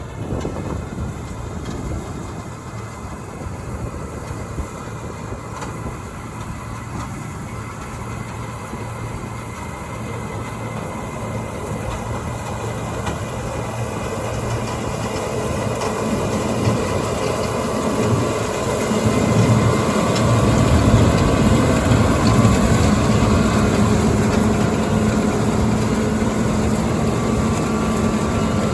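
Heavy farm machinery engine running, growing louder over the second half.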